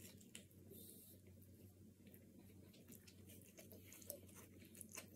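Faint chewing of a bite of thin-crust pizza: scattered soft clicks and smacks of the mouth over a low steady hum.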